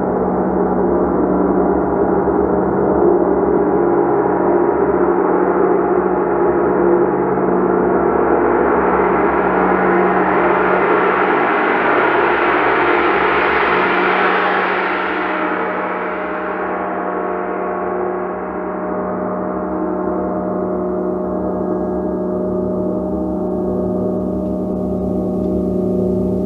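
Gong played continuously as a sustained wash of many overlapping ringing tones over a steady low hum. Its bright upper shimmer swells up through the middle, then fades back down as the sound settles slightly quieter.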